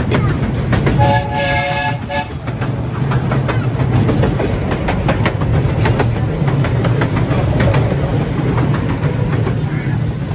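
Narrow gauge steam locomotive's whistle blown once, a chord of several steady tones lasting about a second shortly after the start: the warning blast at a whistle board ahead of a tunnel. Around it, the train runs steadily with wheels clicking over the rail joints and a low rumble.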